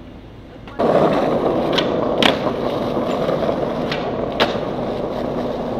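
Skateboard wheels rolling on street asphalt, starting suddenly just under a second in, with a few sharp clacks of the board as a flip trick is popped and landed.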